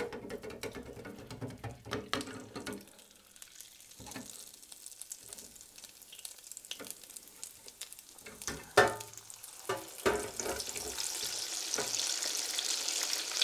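Wire fryer basket clinking and clanking in a stainless steel deep fryer, then partly frozen hash brown fries going into the hot oil and sizzling, the hiss building louder over the last few seconds.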